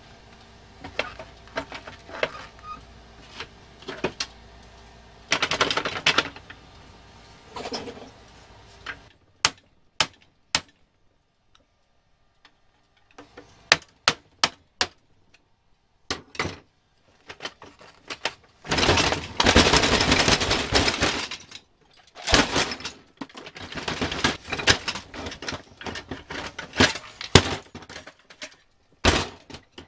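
Metal clicks, taps and knocks from hand tools prying and picking at a 1960s Duncan Duplex parking meter, with several longer stretches of rattling and scraping as the housing is worked loose and pulled apart.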